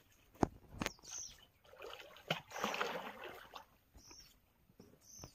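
A large hooked fish thrashing and splashing at the water's surface while it is played on a fishing rod. There are two sharp knocks in the first second, then a longer spell of splashing about two to three seconds in.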